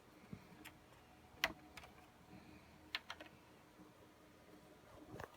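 A few faint, sharp clicks and taps, the loudest about a second and a half in, as a small plastic-and-metal cache module and server parts are handled and fitted onto a server motherboard.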